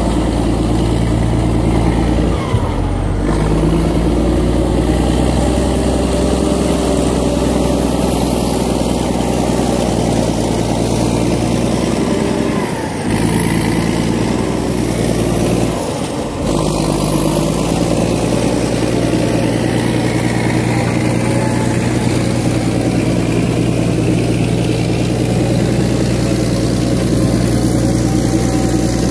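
Caterpillar D8 crawler dozer's diesel engine running steadily and loudly under working load, easing off briefly three times.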